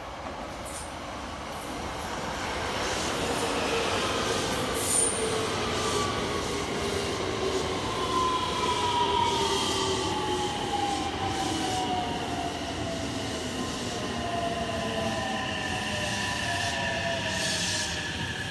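JR West local electric train coming into the station and slowing down, its wheels rumbling on the rails. A whine drops steadily in pitch as it brakes, growing louder from a couple of seconds in as the cars pass close by.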